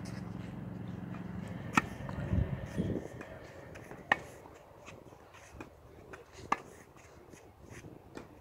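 Tennis ball struck by racquets in a rally, three sharp loud strikes about two and a half seconds apart, with softer knocks between. A steady low hum fades out about three seconds in.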